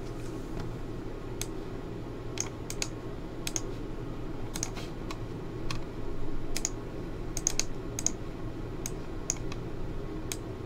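Sparse, irregular clicks from a computer keyboard and mouse, about two a second with uneven gaps, over a steady low hum.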